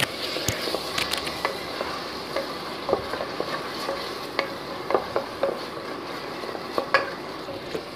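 Wooden spatula stirring and scraping a thick onion-tomato masala around a pressure cooker, with irregular scrapes over a steady sizzle of frying.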